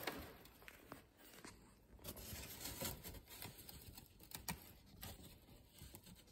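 Faint handling noise: scattered light taps and rustles as a large printed display board is moved about right up against the microphone.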